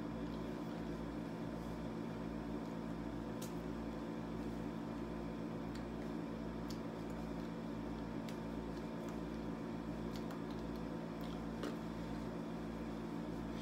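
Steady low hum and room noise with a constant drone, marked by a few faint scattered ticks.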